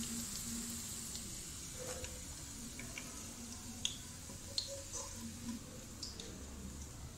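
Faint sizzle of hot frying oil that fades over the first couple of seconds, with scattered small pops and ticks throughout. The sound comes from browned sliced onions draining in a wire skimmer held over the karahi of oil.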